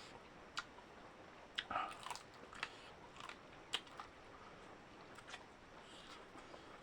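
Close-miked chewing and wet mouth sounds of a person eating a curry meal: irregular sharp smacks and clicks, the loudest about two and four seconds in, easing off near the end.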